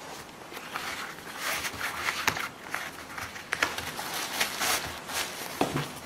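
Hands handling a pair of knit sneakers: irregular rustling and soft taps, with tissue paper stuffing being pulled out of a shoe.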